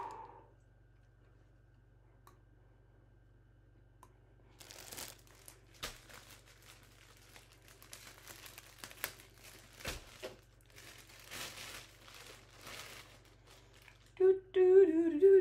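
Thin plastic bread bag crinkling and rustling in irregular bursts as it is worked open and slices are pulled out, starting about four seconds in. Near the end, a short wordless vocal sound, the loudest thing here.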